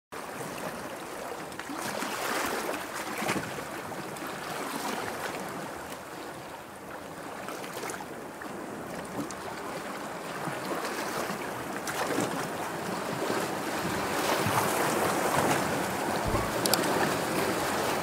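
Sea waves washing in: a continuous rush of surf that swells and eases every few seconds, growing louder toward the end.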